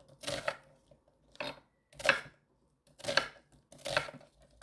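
Chef's knife chopping an onion into chunks on an end-grain wooden cutting board: five separate cuts, irregularly spaced about a second apart, each ending in a knock of the blade on the wood.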